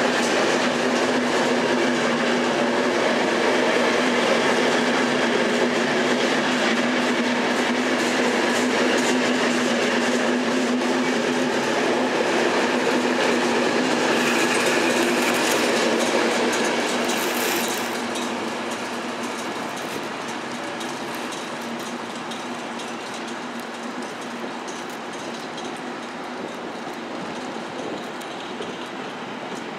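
Corail passenger coaches of a train rolling past along the platform track: a steady rumble of wheels on rails with a humming tone underneath. It fades about seventeen seconds in, as the last coach passes and the train draws away.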